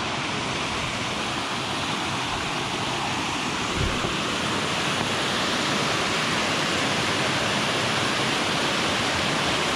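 White water rushing down a small stony weir, a steady loud rush that starts abruptly at the cut.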